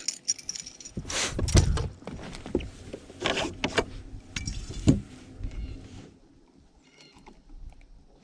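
Irregular knocks, thumps and rattles of handling on a boat's deck, a fish being dealt with after landing. The loudest thump comes about a second and a half in and another near five seconds, and it quietens over the last two seconds.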